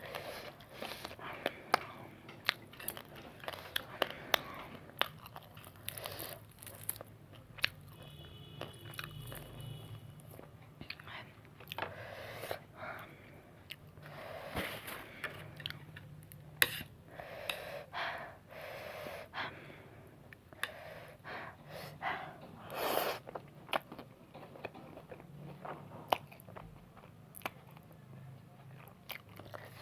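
A person eating spicy noodles close to the microphone: wet chewing and biting with many sharp mouth clicks, and a few longer noisy rushes in the middle.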